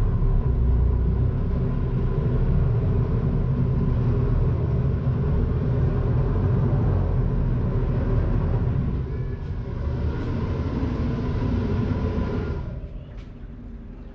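A boat's engine running steadily, a low rumble with a faint steady hum over it, dropping away about two seconds before the end.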